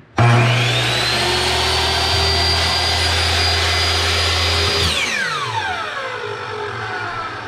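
Metabo HPT 10-inch compound miter saw's 15-amp motor switched on and running free with no cut. It winds up to speed with a rising whine and runs steady for about four seconds. About five seconds in it is switched off, and the blade spins down with a falling whine.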